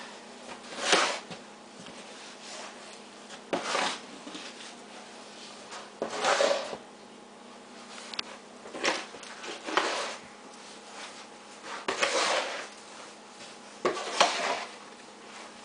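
Snow shovel scraping and scooping snow, a short rough scrape every two to three seconds.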